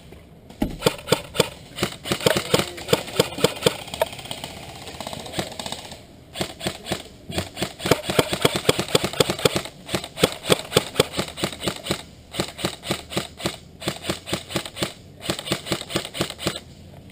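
Airsoft electric rifle firing on full auto in long strings of rapid shots, about seven a second, with short breaks between strings.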